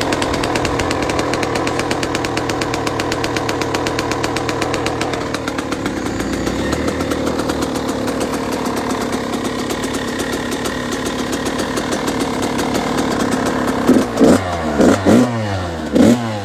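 Kawasaki KX85's two-stroke single-cylinder engine, freshly rebuilt with a new top end and reeds, running steadily. Near the end it is blipped four or so times in quick succession, each rev rising and falling sharply.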